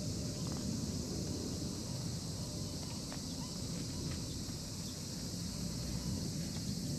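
A steady, high-pitched insect drone over a low rumble, with a few faint ticks.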